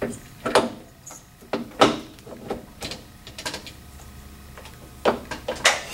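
Irregular sharp clicks and knocks of metal parts as a replacement gear motor assembly is handled and slid down into place on an electric actuator's base. The loudest knocks come about half a second in, around two seconds in, and twice more near the end.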